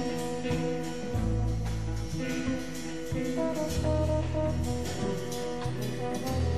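Jazz background music: held horn notes over a bass line with light cymbal taps from a drum kit.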